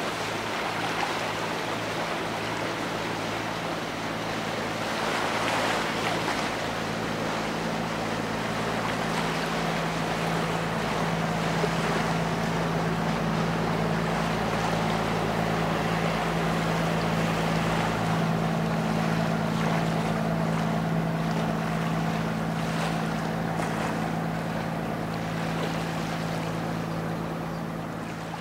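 Sightseeing boat's engine running with a steady low hum over the rush of water from its wake, the hum growing a little stronger as the boat comes closer.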